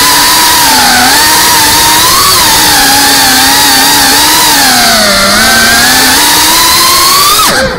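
FPV quadcopter's brushless motors and propellers, heard from the onboard camera, whining loudly, the pitch rising and falling with the throttle as it flies. Near the end the pitch drops steeply and the sound dips as the throttle is cut.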